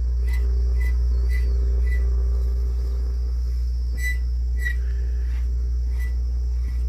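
An old radio's speaker putting out a steady low hum while the tuning knob is turned between stations, with faint chirps and crackles coming and going over it.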